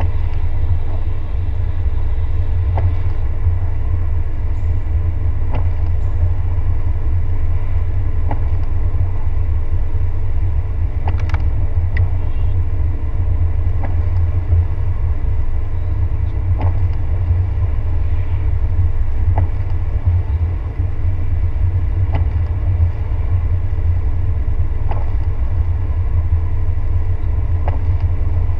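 Car driving on a rain-wet road, heard from inside the cabin: a steady low rumble of road and engine noise, with a light tick about every three seconds as the windshield wipers sweep.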